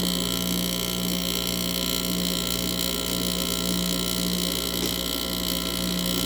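2009 GE 10,000 BTU air conditioner running: a steady hum from its rotary compressor and fan motor, with a high whine over it. The owner thinks the rotary compressor is an LG.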